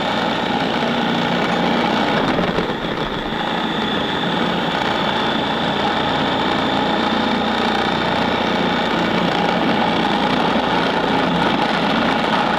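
Food processor motor running steadily, its blade churning crumbly pasta dough that is still too dry to gather into a ball around the blade.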